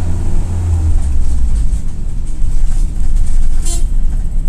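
Steady low engine and road drone inside the cabin of a Toyota Coaster LPG minibus as it gathers speed from about 20 to 24 km/h, with one brief sharp click about three and a half seconds in.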